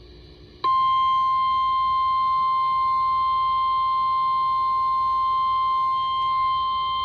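EAS/weather-radio attention tone: a single steady, loud 1050 Hz alert tone that comes on abruptly about half a second in and holds, the signal that a National Weather Service warning message follows.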